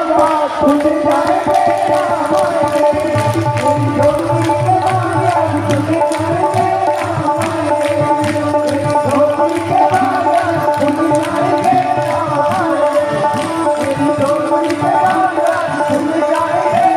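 A Hindu devotional bhajan played loud over PA loudspeakers: a voice singing a wavering melody over tabla strokes.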